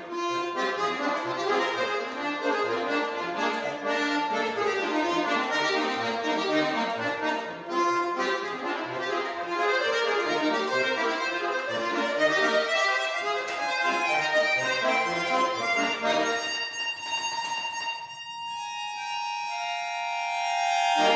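Bayan (Russian button accordion) playing a quick melody over a steady left-hand bass-and-chord accompaniment. Near the end the piece closes on a long held chord that swells louder before it stops.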